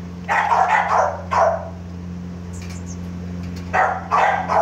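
Small puppies yapping: a run of quick, high barks just after the start and another run near the end, over a steady low hum.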